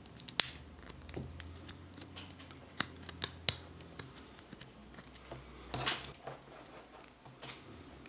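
Small, sharp plastic clicks as the orange levers of a three-pole Wago compact lever connector are flipped open by hand, a few separate clicks with a cluster of them about six seconds in, and faint handling noise between.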